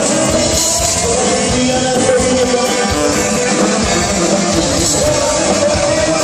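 Rock music with a sung vocal and guitar over a steady beat.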